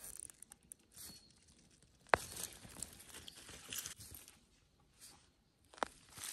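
A white radish being pulled by hand out of dry soil: leaves rustling, earth crumbling and tearing away from the root, with two sharp snaps, about two seconds in and again near the end.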